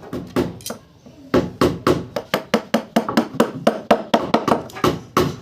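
A hammer striking wood in quick repeated blows, about four to five a second, with a brief pause about a second in.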